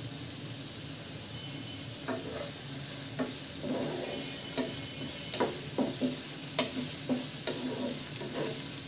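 Sliced onions sizzling in hot mustard oil in a frying pan, stirred with a spatula that scrapes through them in irregular strokes from about two seconds in, a few of them sharper knocks against the pan.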